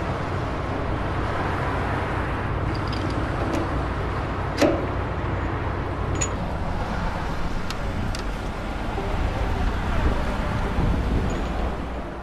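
A steady low rumbling noise with a few sharp metal clicks, the loudest about a third of the way in. The clicks come from a metal lathe's three-jaw chuck being tightened by hand with its chuck key.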